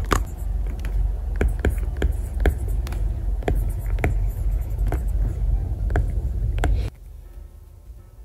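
Apple Pencil writing on a paper-like matte screen protector on an iPad Air 3: a dozen or so short scratchy strokes and taps of the nib, which sound like pencil on paper. The writing sound cuts off sharply about seven seconds in.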